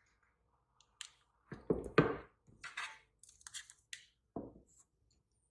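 Hands plugging a USB-C to Lightning cable into a USB meter and phone and setting them on a hard desk: a string of knocks and clicks, the heaviest about two seconds in, then lighter clicks and a last knock near the end.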